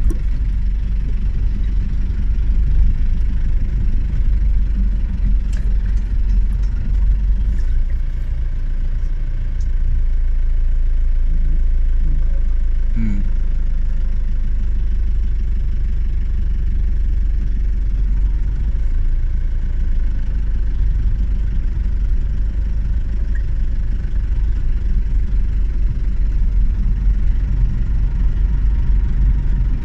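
Vehicle engine running slowly at near idle, a steady low rumble heard from inside the cab.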